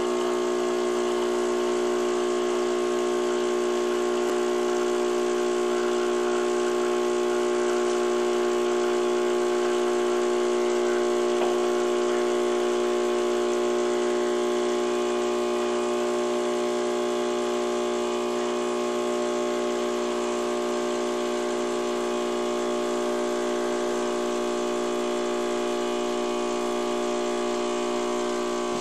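Cappuccino machine's pump running with a steady, pitched hum.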